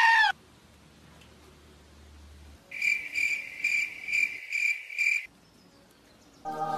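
Cricket chirping sound effect: six evenly spaced high chirps, about two and a half a second, starting near three seconds in and stopping abruptly, the comedy cue for an awkward silence. A loud held high cry cuts off at the very start.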